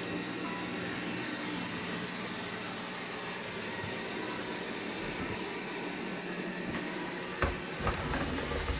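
Xiaomi Mi robot vacuum running, a steady hum and hiss as it drives across a rug. A few short low thumps near the end.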